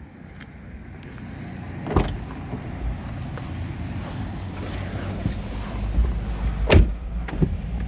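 Handling noises in and around a Mazda ND Roadster before it sets off: a low rumble that slowly grows, with two sharp knocks, one about two seconds in and a louder one near the end, and a few small clicks.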